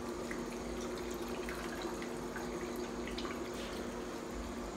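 Original wall-hung urinal flushing through its flushometer valve: water running and splashing into the bowl and draining, over a steady hum.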